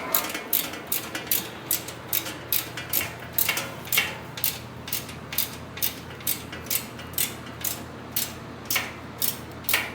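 Hand ratchet wrench clicking in a steady run, about three clicks a second, as bolts are tightened.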